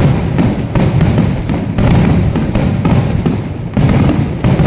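Fireworks going off in a dense finale barrage: many sharp bangs a second overlapping into a continuous low rumble.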